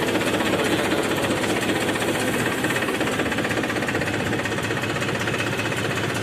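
Powertrac tractor's diesel engine running steadily with its fast, even clatter, pulling a soil leveller through the field in first gear high. It is under load at normal engine speed with no extra throttle.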